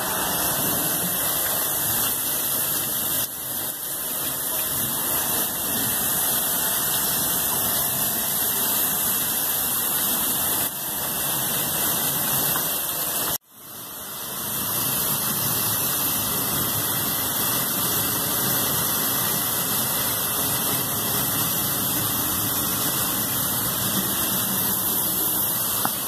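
Steady loud rush of an air-cooled chiller plant running, with a pressure-washer jet spraying water onto the condenser coil. The noise cuts out sharply for a moment about halfway through, then builds back.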